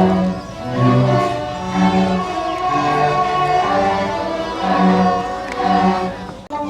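A school student orchestra playing live, with bowed strings such as violins and cellos sustaining the melody and bass notes.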